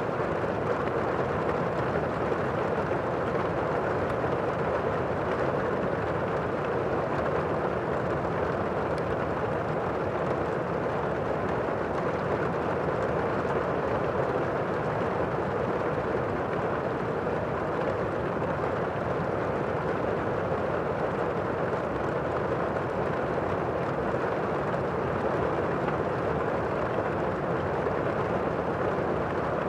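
Steady rain, heard muffled as from inside a room: an even, unbroken hiss with little high treble and no separate drips or thunder.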